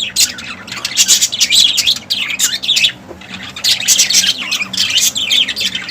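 Pet lovebirds chattering: a flock of shrill, rapid chirps and squawks, thinning briefly about three seconds in before picking up again.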